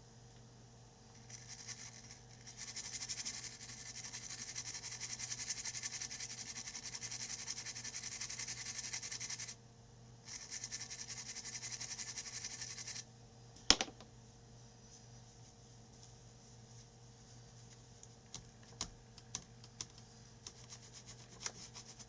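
Brush scrubbing a laptop motherboard clean around a freshly soldered BIOS chip: fast scratchy strokes in two spells of several seconds each. A single sharp click follows, then a few light taps near the end.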